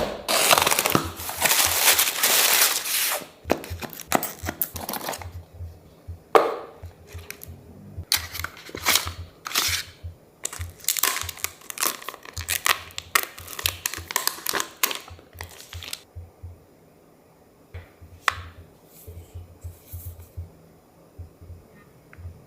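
Packaging being torn open and handled: plastic film and paper tearing and crinkling, heaviest in the first three seconds, then bursts of rustling and a few sharp clicks as the box is opened.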